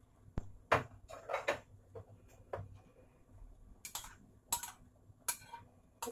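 A metal spoon clinking and knocking against a ceramic bowl of beaten egg: about a dozen irregular sharp clinks, some ringing briefly.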